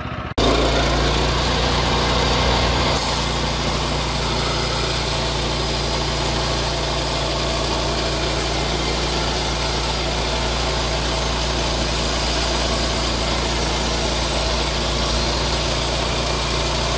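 Portable bandsaw mill's 9.5-horsepower engine running steadily while the band blade is pushed along the log, cutting a board. A higher hiss joins about three seconds in.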